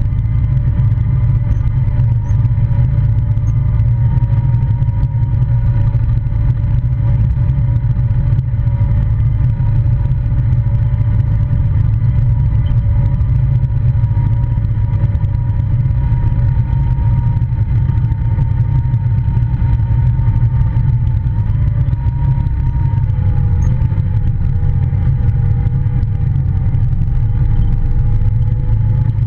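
Polaris Ranger side-by-side running steadily on the move, a deep continuous rumble with a steady whine over it that drops a little in pitch about two-thirds of the way through.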